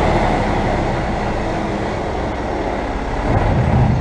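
Dump truck's diesel engine running as the truck creeps into position on sand, heard with rumbling vehicle noise from the outside of the truck. The low rumble grows louder about three and a half seconds in.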